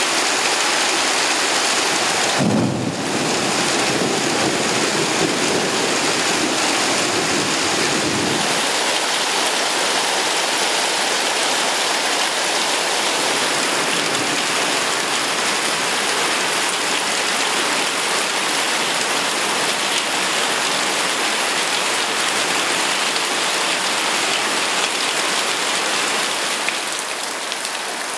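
Heavy rain pouring steadily onto paving and puddles. About two and a half seconds in, a roll of thunder breaks in with a sudden crack and rumbles low for about six seconds.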